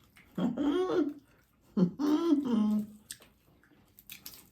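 Two short wordless vocal sounds from a person, hummed, each with a bending pitch: one about half a second in, a longer one about two seconds in.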